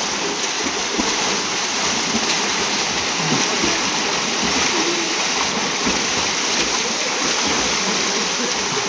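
Many swimmers in life jackets kicking and splashing together in a pool: a steady, continuous wash of splashing water.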